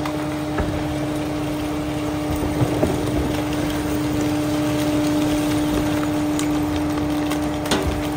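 Freightliner garbage truck's engine running with a steady hydraulic pump whine as the New Way rear loader's packer cycles through the hopper, with a few light clanks near the end.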